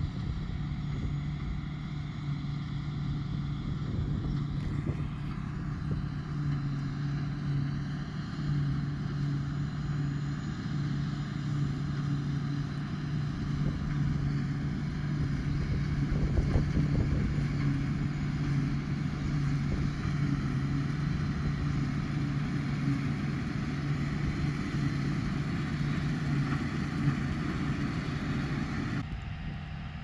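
John Deere 2056 combine harvester running at working speed while cutting wheat: a steady low drone of constant pitch with a hiss over it. The sound changes abruptly about a second before the end.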